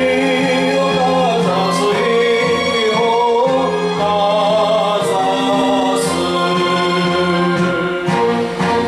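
A man singing a Japanese popular ballad into a handheld microphone, holding long, wavering notes over an instrumental backing track.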